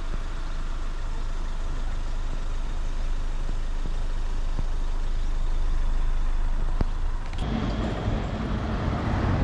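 Steady rumble of a moving vehicle, engine and road noise, with the sound changing about seven seconds in.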